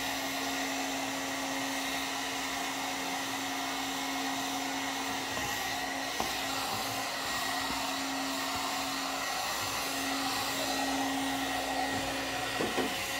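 One-step hot-air dryer brush running steadily, blowing air onto hair: an even rush of air over a constant hum.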